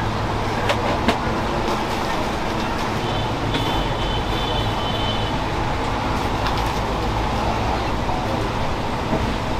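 Steady street traffic noise: an even rumble with a low hum under it, a few faint clicks, and a faint high tone for a moment near the middle.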